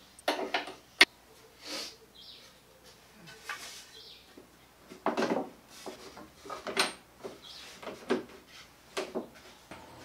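A wooden linkage arm being handled and fitted onto the pivot pins of a folding wooden shelf: a run of irregular wooden knocks, clicks and short scrapes, with a sharp click about a second in.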